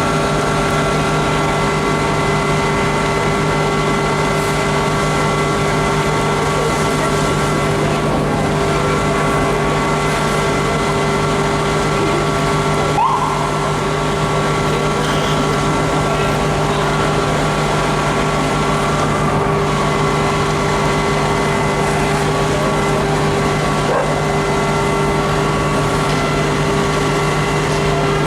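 Fire engine's diesel engine running steadily, a constant drone that holds one pitch throughout.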